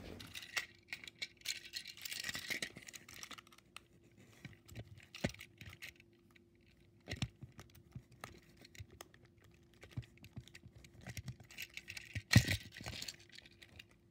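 Hands handling a plastic Plarail toy train engine to get into its battery compartment: irregular small clicks, taps and rustling, with a sharper knock near the end. A faint steady hum runs underneath.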